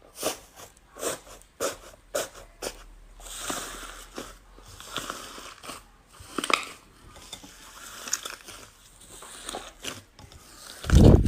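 Slime being squeezed and pressed by hand, making irregular sticky clicks, pops and crackles. A loud low thump comes just before the end.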